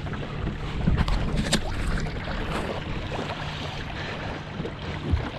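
Wind buffeting the microphone over water noise from a kayak on a lake, with a faint steady low hum and two sharp clicks a little after the first second.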